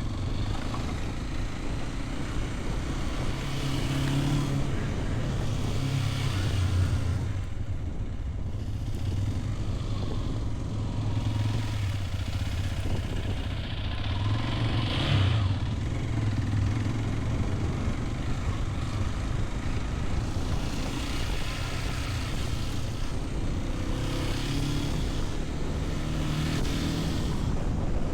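Hero XPulse 210's single-cylinder engine running steadily under way, with wind and road noise over it; the engine note shifts up and down a little as the throttle changes.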